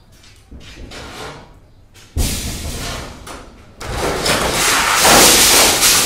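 Wooden shuttering planks and bamboo props being knocked loose from under a concrete slab and falling. There is a sudden heavy thud about two seconds in, then a longer, louder crash of falling timber near the end.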